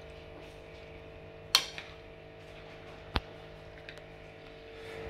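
Hands stirring raw fish in coconut cream in a glass bowl: mostly quiet over a steady low hum, with two sharp clicks, about a second and a half and about three seconds in.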